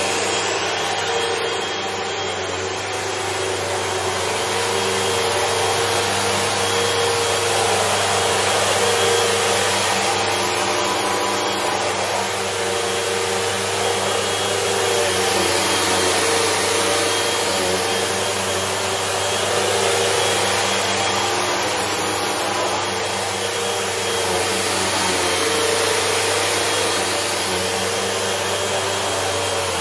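Upright bagless vacuum cleaner running steadily as it is pushed over a rug: a continuous motor hum and rush of suction that swells and eases slightly with each stroke.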